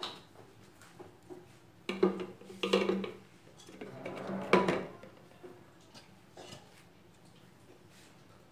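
Plastic funnel and plastic bottle handled on a kitchen counter: a few hollow plastic knocks and clatters, the loudest about halfway through, then only faint small clicks.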